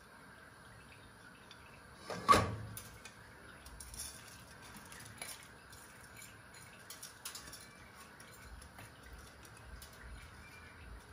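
Rinsed rice being tipped from a plastic container into a pot of boiling spiced water, with one loud knock against the pot about two seconds in, then faint clicks and soft splashing.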